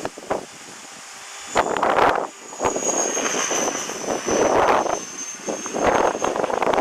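Strong wind buffeting the microphone in loud, uneven gusts, over the steady high whine of an Align T-REX 500 electric RC helicopter's motor and rotors.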